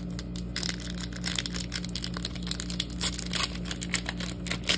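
Foil trading-card pack wrappers crinkling and crackling as they are handled: an emptied wrapper is put aside and a sealed pack is picked up. The crackling thickens about half a second in and goes on in irregular bursts.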